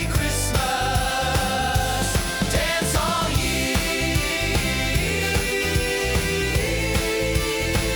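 Upbeat Christmas pop backing music with a steady beat and sustained melodic notes.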